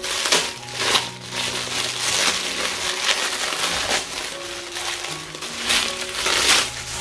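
Plastic protective wrapping crinkling and crumpling in irregular bursts as it is pulled off the handles of a new leather handbag, with soft background music underneath.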